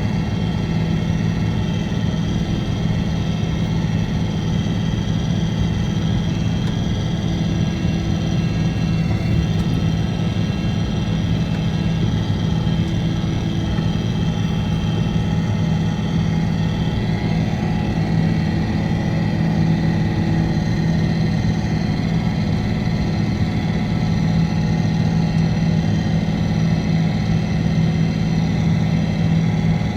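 Wheel loader's diesel engine running steadily under load while it pushes snow, a constant heavy drone with a steady higher whine over it.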